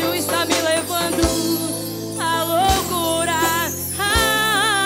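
Live band music with a woman singing long held notes into a microphone, over electronic keyboard and deep bass beats about every one and a half seconds.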